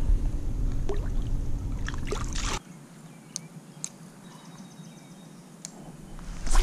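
Water sloshing and splashing as a small fish is released by hand into the water, over a heavy low rumble. About two and a half seconds in the sound cuts off abruptly to a much quieter background with a few light clicks, and a loud rush of noise comes in near the end.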